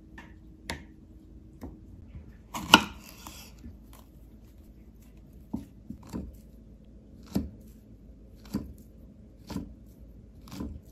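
Kitchen knife slicing a peeled banana into rounds on a wooden cutting board, each cut ending in a light knock on the board, about one a second through the second half. About three seconds in there is a single louder knock with a brief rattle.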